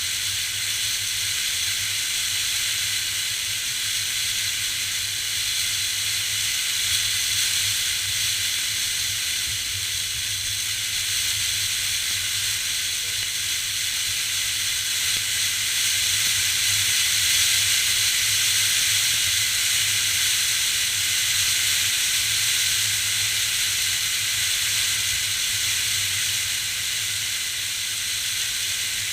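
Steady hiss of wind-blown sand drifting across the dunes, swelling a little midway, with a low, steady rumble of wind underneath.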